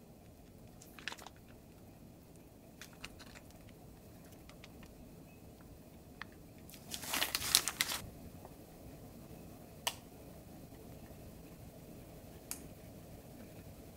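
Plastic piping bag crinkling and squishing as cream is squeezed out of it, with a louder burst of crinkling about seven seconds in as the last of the cream is wrung out. Light clicks and taps of handling are scattered through.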